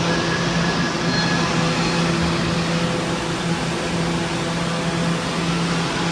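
R211A subway car running at steady speed: an even rumble of wheels and rails with a steady electric motor hum over it.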